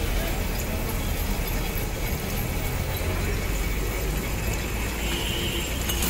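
Steady traffic noise from a busy city street: a continuous low rumble of passing vehicles.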